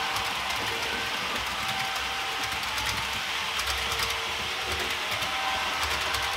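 H0-scale model train running along the track: a steady electric motor hum with the wheels clicking lightly over the rails, a run of clicks about halfway through.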